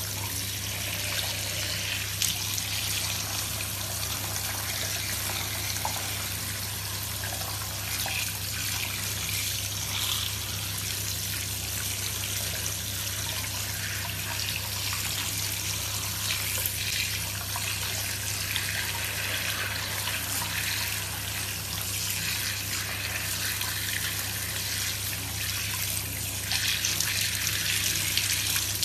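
Tap water running steadily, splashing onto hands and a baby squirrel monkey as it is washed in a sink, with a steady low hum underneath.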